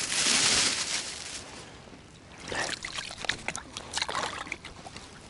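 Water splashing and dripping at an ice-fishing hole: a loud rushing hiss in the first second, then a scatter of short splashes and drips about halfway through.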